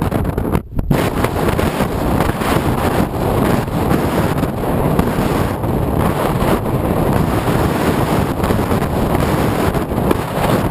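Steady, loud wind noise buffeting the microphone of a camera mounted on a flying radio-controlled model plane, with a brief drop just under a second in.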